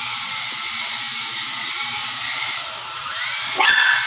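Toy remote-control helicopter's small electric motor and rotor whining steadily at a high pitch, rising a little near the end. A sudden sharp sound follows just before the end as the helicopter comes down to the floor.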